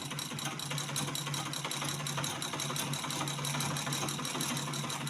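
Black-head Butterfly manual treadle sewing machine running steadily as the treadle is pedaled, unthreaded, with a fast, even run of mechanical ticks over a low hum.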